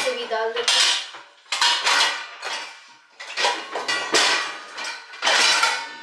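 Metal plates, bowls and pans clattering and clinking as they are set into a dishwasher's racks, in about four separate bursts of knocks with a short metallic ring.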